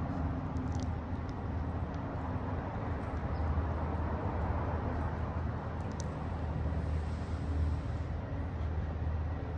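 Steady low rumble of traffic, with a couple of faint ticks about a second in and again halfway through.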